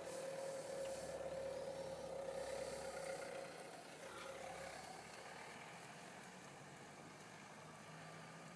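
A distant engine's steady hum that fades after about three seconds, leaving a fainter low hum.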